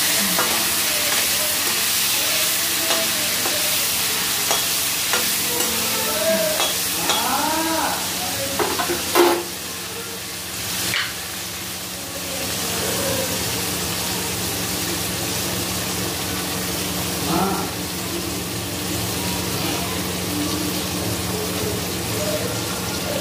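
Chopped tomatoes and green chillies sizzling steadily as they fry in a metal kadhai, with a spatula stirring through the pan. A couple of sharp knocks sound about nine and eleven seconds in.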